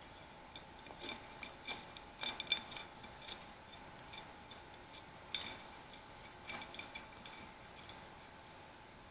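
Light metallic clicks and clinks of the small steel governor linkage parts of an Allis-Chalmers WD45 tractor engine being handled and fitted together by hand, in scattered bursts, the sharpest about two and a half, five and a half and six and a half seconds in. A faint steady hum runs underneath.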